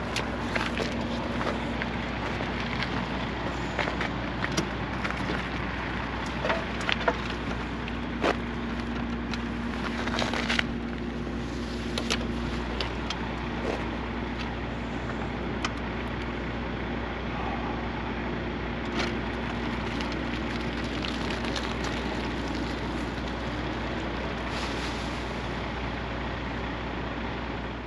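A vehicle running steadily: a constant rushing noise with a faint low hum, broken by scattered sharp clicks and knocks. The sound cuts off suddenly at the end.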